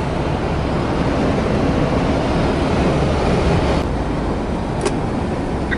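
Steady engine and road noise inside the cab of a truck cruising on a highway, with one short click about five seconds in.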